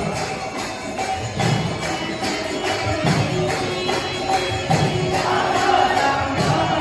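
Devotional kirtan music for a temple aarti: steady rhythmic jingling of hand cymbals and bells over regular drum beats.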